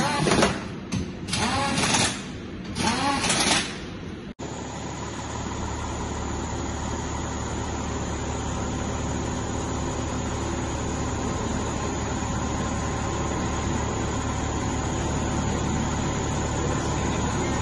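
A power tool under the raised car whirring in three short bursts, each spinning up and then down in pitch. After a cut about four seconds in, a steady machine hum runs on.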